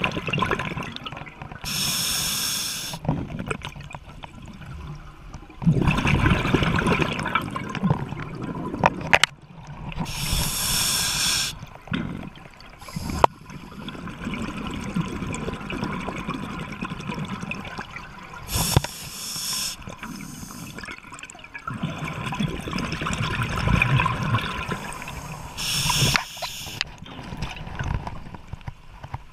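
Scuba breathing underwater: a short hiss of inhalation through the regulator about every eight seconds, each followed by a longer gurgling stream of exhaled bubbles.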